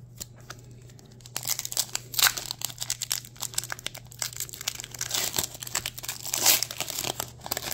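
Foil wrapper of a Pokémon card booster pack crinkling and tearing as it is pulled open by hand. The crackling starts about a second and a half in and goes on densely, loudest about two seconds in and again near the end.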